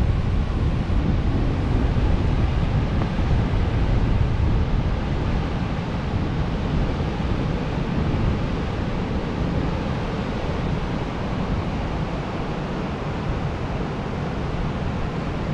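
Steady rushing of wind and surf, with wind buffeting the microphone as a deep rumble. It is loudest in the first half and eases off a little after that.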